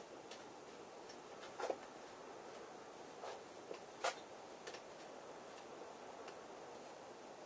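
Scattered light clicks and taps from hand work on a bicycle crank, with two louder clicks about a second and a half and four seconds in, over a faint steady hiss.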